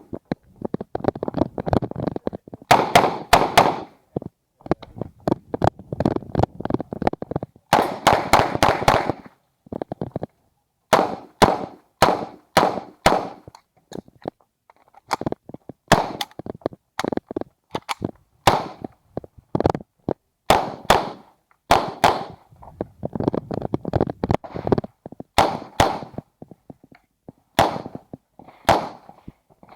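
Uzi Pro 9 mm pistol fired as fast semi-automatic shots in strings, with short pauses between them. There are dense runs of quick shots about 3 seconds and about 8 to 9 seconds in.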